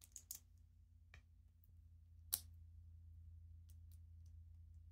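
LEGO plastic plates clicking as they are handled and pressed together: a few light clicks near the start and one sharper snap about halfway through, over a faint steady low hum.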